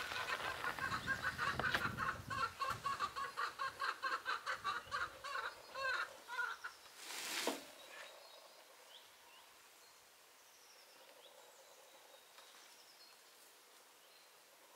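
Chicken clucking in a fast run of calls for about six seconds, then a brief rustle-like noise about seven seconds in. After that a quiet outdoor background with a few faint bird chirps.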